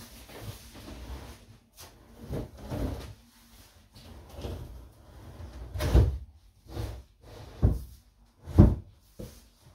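Laminate kitchen worktop being slid and shifted into place on base cabinets: wood scraping and rubbing, then several dull knocks in the second half, the loudest near the end.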